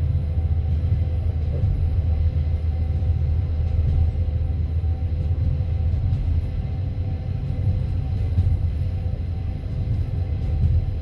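Steady low rumble of a moving passenger train carriage, heard from inside the coach, with its wheels running on the rails.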